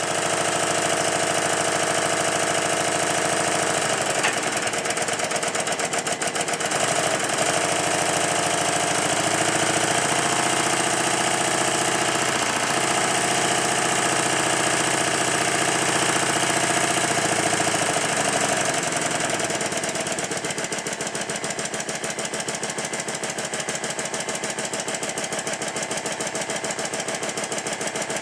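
Stuart triple expansion model steam engine running fast with a rapid, steady chuffing of exhaust beats and clatter of its valve gear, a little quieter from about two-thirds of the way through. It is running compound on its high-pressure and intermediate cylinders, the first link pipe now connected, which makes it run much better.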